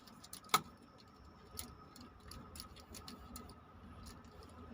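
Light, irregular clicks and taps of small parts and tools being handled while a water pump's run capacitor is replaced, with one sharper click about half a second in. A faint steady high whine sits underneath.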